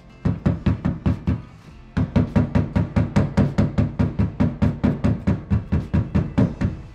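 Mallet tapping rapidly on the ends of rod-storage pipes, driving them through the holes of a mounting plate: sharp knocks at about four or five a second, with a short pause about a second and a half in. Faint background music underneath.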